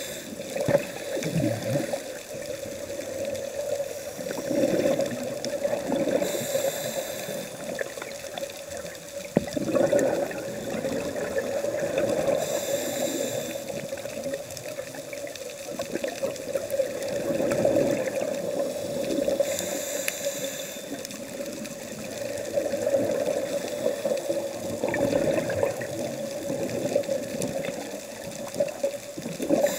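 Scuba diver's regulator breathing underwater: four short hisses of inhalation, several seconds apart, with gurgling exhaust bubbles between them, over a steady hum.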